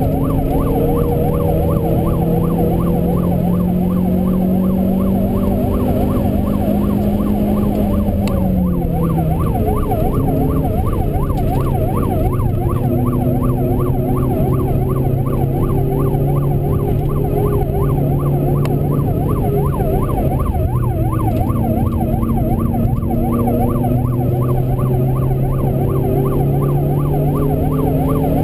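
Renault Clio 2.0 four-cylinder engine running under load, heard inside the cabin; its pitch climbs, then drops about eight seconds in and holds steady after. Over it a siren warbles without a break, rising and falling a few times a second.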